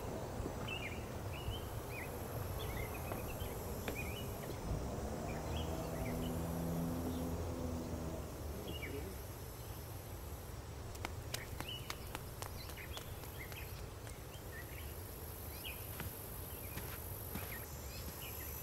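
Outdoor ambience of small birds chirping, short falling chirps scattered throughout, over a low steady rumble. A brief low hum comes in the middle, and a few sharp clicks like light footsteps fall in the second half.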